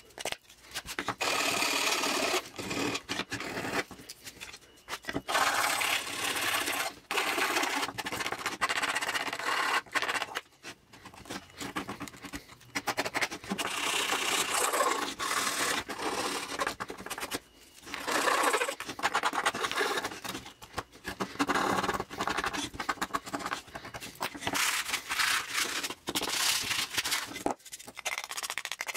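Sandpaper rubbed by hand in rapid back-and-forth strokes along the edges of a black-painted wooden letter, in spells of a few seconds with short pauses, wearing the paint back to bare wood to distress it.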